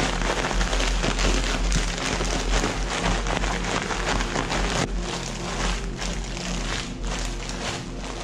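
Salt and vinegar potato chips being crushed inside a plastic bag: dense crackling and crunching with plastic rustle, over background music.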